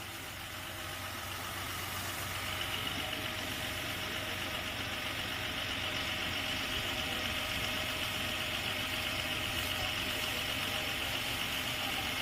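A motor running steadily with a hiss over it; a steady tone joins in a few seconds in.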